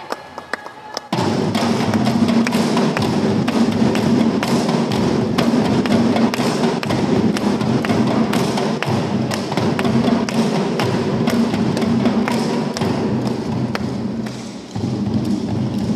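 Children's drum band playing: snare, tenor and bass drums strike a dense, steady beat that starts suddenly about a second in after a few light taps, and dips briefly near the end.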